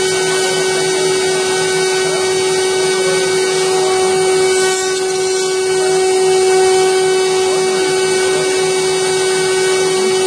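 CNC router spindle running at speed while its tapered carving bit cuts a wooden furniture leg. A steady whine sits over the hiss of the cut, unchanged throughout.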